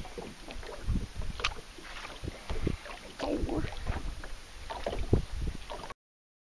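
Wind rumbling on the microphone aboard an open bass boat on choppy water, with irregular knocks and thumps, and the sound cuts off abruptly near the end.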